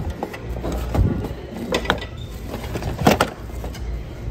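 Small wooden decor blocks knocking and clattering against each other as they are handled and set back down on a shelf: a few sharp knocks, the loudest about three seconds in, over a steady low hum.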